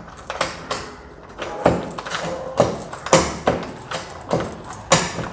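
Key being worked back and forth in a mortise door lock: a series of irregular metallic clicks and clacks from the lock mechanism, with the key bunch jingling. The lock turns stiffly because its internal plate is not catching correctly.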